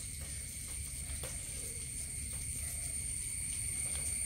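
Steady high-pitched insect drone over a low background rumble, with a few faint clicks of small objects being handled.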